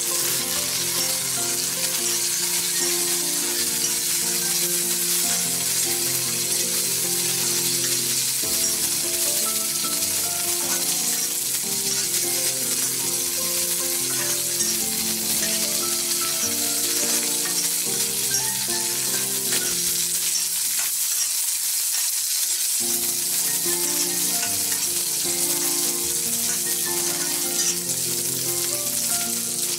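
Green chillies, cumin seeds and curry leaves sizzling steadily in hot oil in an iron kadai as a steel spoon stirs them, with instrumental background music underneath.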